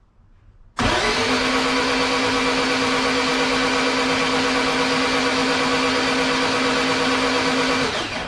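Starter motor cranking a turbocharged Honda H2B race engine with its spark plugs out, so it spins fast and even with no compression and no firing: a steady whir that starts suddenly about a second in and stops near the end. The engine is being turned over to spread fogging oil through the cylinders for storage.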